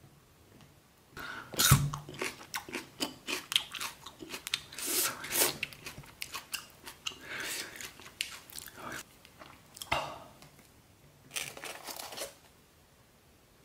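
Clear plastic cling film crinkling and crackling in irregular bursts as it is pulled back from a styrofoam tray of red chili peppers, with a sharp crackle loudest just under two seconds in. It goes quiet about a second before the end.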